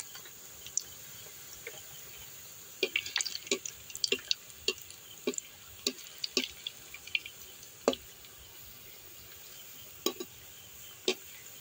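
Gulab jamun balls deep-frying in oil in a metal wok: a faint steady sizzle with scattered sharp clicks and pops. The pops come from the oil and from the perforated slotted spoon turning the balls, and they are thickest in the middle stretch, with two more near the end.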